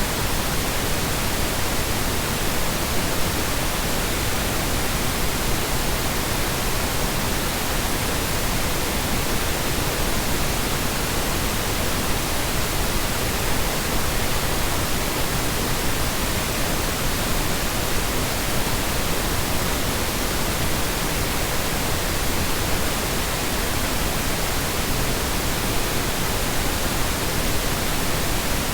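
Continuous synthetic Brownian noise: a steady, even rush with no changes in level.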